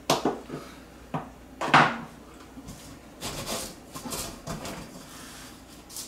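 Metal clinks and knocks from a ceiling light fixture's metal base and mounting hardware being loosened with a screwdriver and handled, a few sharp ones in the first two seconds with the loudest just under two seconds in, then softer scraping and rubbing as the fixture is shifted.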